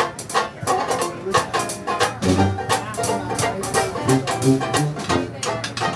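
Dixieland jazz band playing, with a steady drum beat over a moving bass line.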